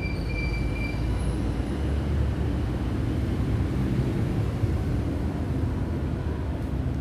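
Woodworking machine running steadily with a low mechanical rumble, with a thin high-pitched squeal over it for about the first second.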